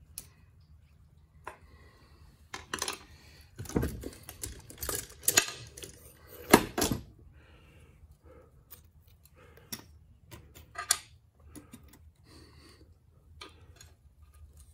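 Metal clinks and knocks of hand tools and valve parts on a Case 188D cast-iron cylinder head as a C-clamp valve spring compressor is set on the valves. A dense run of clatter comes in the first half, with the loudest knock about six and a half seconds in, then scattered clicks.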